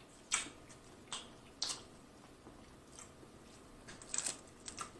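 Close-miked eating sounds: chewing with wet lip smacks and mouth clicks, coming irregularly about once or twice a second.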